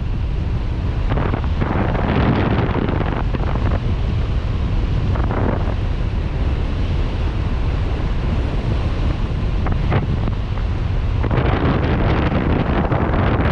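Wind buffeting the camera microphone: a steady low rush with louder gusts twice, about two seconds in and again near the end.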